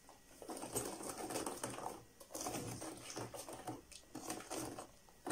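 Metal wire hand whisk beating softened butter into milk in a plastic tub: a fast rattling and clicking of the wires against the tub, with liquid sloshing, in quick strokes that pause briefly about two and four seconds in. The butter is being broken up into small pieces in the milk.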